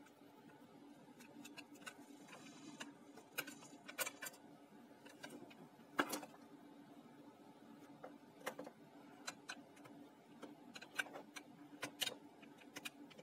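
Scattered small clicks and knocks of plastic and metal parts of a portable CD player being handled and pressed together during reassembly, the sharpest about six seconds in, over a faint steady hum.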